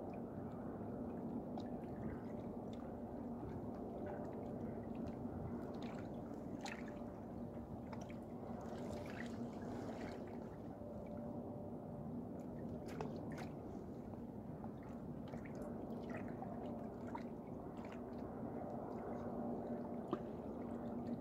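A steady low drone with two faint held tones in it, and scattered small clicks and ticks over the top.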